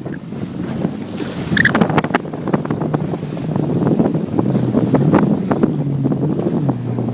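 Jet ski engine running over rough ocean chop, with hard wind buffeting the microphone and water slapping against the hull. The engine's pitch drops near the end as it eases off.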